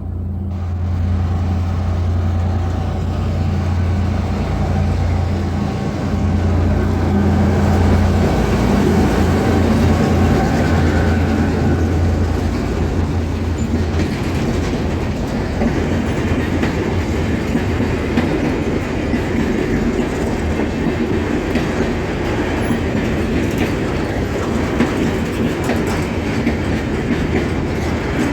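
An empty freight train passing close by, pulled by an ALCo RSD16 and an EMD GR-12W diesel locomotive. The locomotives' engines hum loud and low for roughly the first twelve seconds. After that the empty wagons rumble past, their wheels clicking over the rail joints.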